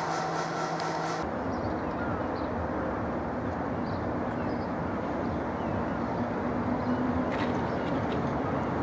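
A steady electric hum that cuts off about a second in. Then the steady rumble of a Class 313 electric multiple unit approaching slowly over the pointwork, with a faint hum.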